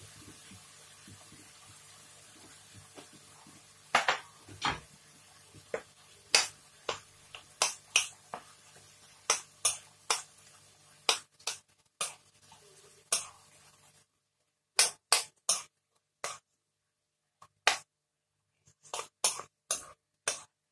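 A metal spoon stirring curry in a coated wok, clinking and scraping against the pan in quick irregular strokes from about four seconds in.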